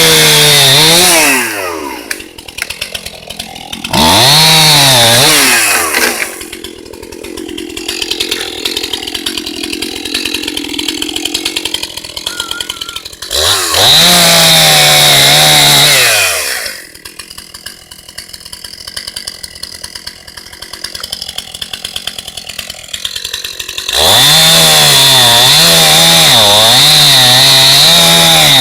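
Gas chainsaw cutting a downed cherry tree: four stretches at full throttle with a wavering engine pitch, dropping back to a quieter, rapidly ticking idle between cuts.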